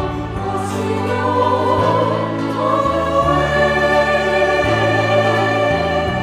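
Music: a choir sings slow, held chords over a low bass line that moves to a new note every second or so.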